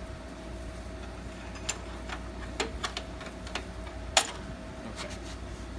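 Scattered light metallic clicks and taps as a pry bar and metal clip are worked against the steel fittings of a homemade bungee tool on the landing gear, the loudest tap about four seconds in. A steady low hum runs underneath.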